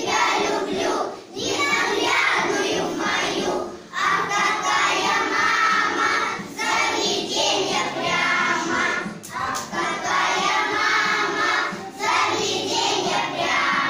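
A group of young children singing a song together in unison, in phrases with short breaks between them.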